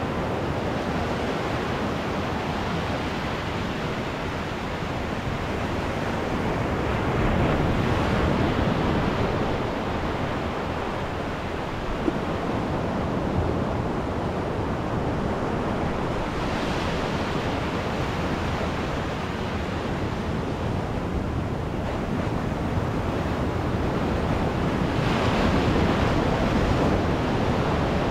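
Ocean surf breaking and washing up a sandy beach: a continuous rush of waves that swells louder about a third of the way in and again near the end as surges run up the sand.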